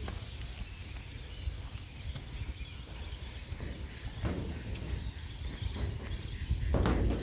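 Outdoor ambience: faint, scattered bird calls over a steady low rumble, with two brief noisy rushes about four and seven seconds in.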